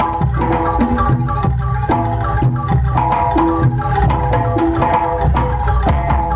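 Live Javanese jaranan gamelan accompaniment: hand drums play a quick, steady rhythm with short bending tones over sustained ringing metal gong-chime notes.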